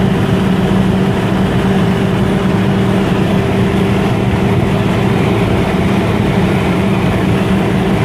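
Tofaş Doğan's four-cylinder engine running at steady revs, heard from inside the cabin, with a constant drone and heavy road and wind noise as the car cruises at speed.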